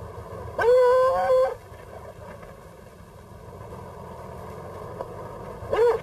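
A dog howling: one long call that rises and then holds steady for about a second, starting about half a second in, and a shorter call near the end.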